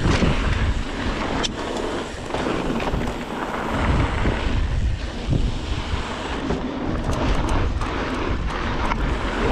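Mountain bike ridden down a dirt trail, heard from a chest-mounted action camera: steady wind rush on the microphone and tyre rumble, with sharp knocks and rattles from the bike, in a quick run of them toward the end.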